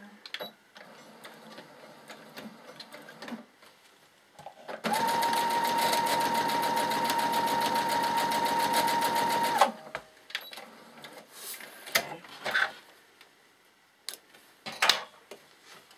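Electric sewing machine stitching at steady speed for about five seconds: a motor whine under a rapid, even needle rhythm, starting and stopping abruptly. Light clicks and fabric handling come before and after.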